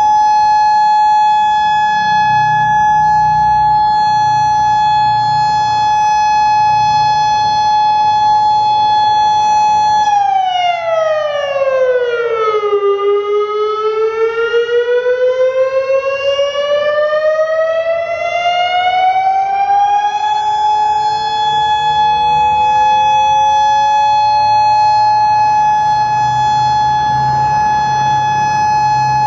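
Federal Signal Modulator 6048 electronic siren sounding its test tone: a steady high tone with overtones that about ten seconds in drops quickly in pitch, then climbs slowly back over about seven seconds and holds steady again.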